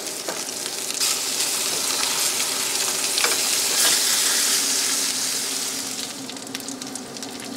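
Slices of meat loaf and fried potatoes sizzling in a hot frying pan as the slices are turned. The sizzle swells about a second in, is loudest around four seconds, then eases, with a few small crackles near the end.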